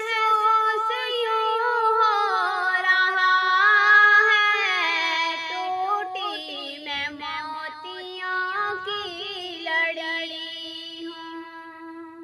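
A solo female voice singing an Urdu Hajj naat unaccompanied, in long held notes with ornamented, wavering turns. Near the end she holds one lower note that fades away.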